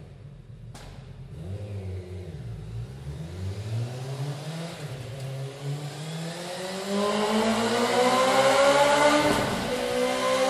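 Honda CBR1000RR's inline-four engine through its stock exhaust, revving up, its pitch climbing steadily over several seconds and growing louder. The revs dip briefly near the end and climb again. There is a short click about a second in.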